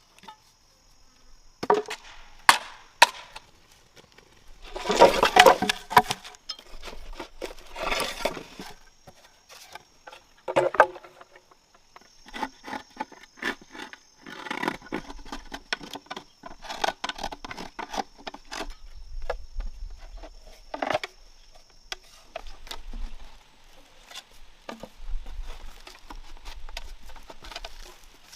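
Bamboo and wood being worked by hand: scattered sharp knocks and strikes, with two longer rasping bursts about five and eight seconds in. A steady high insect drone runs under the first two-thirds or so.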